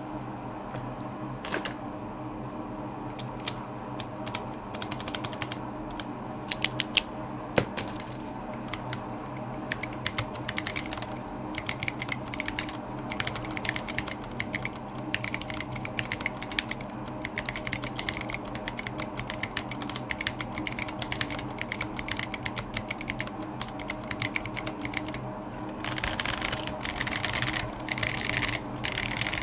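Typing on a Lily58 Pro split mechanical keyboard with Rara switches and SA-profile Oblivion keycaps: irregular keystrokes, sparse at first and becoming fast and dense near the end.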